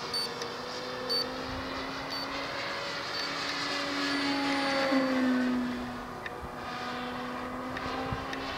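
Brushless electric motor and 15x8 APC propeller of an RC Extra 300 aerobatic plane in flight, a steady pitched drone that rises in pitch and loudness about five seconds in, then eases off and gets quieter. Four short high beeps, one a second, sound during the first few seconds.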